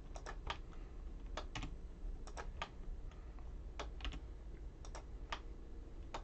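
Faint, scattered clicks of a computer keyboard and mouse, often in quick pairs, over a low steady hum.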